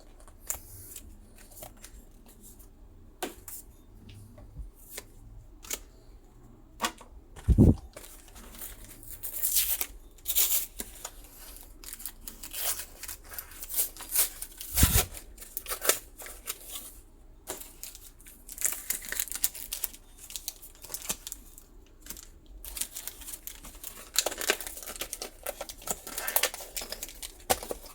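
Foil Pokémon card booster pack being handled, its wrapper crinkling and tearing, with scattered small clicks and rustles. Two dull thumps, the loudest sounds, come about seven and fifteen seconds in.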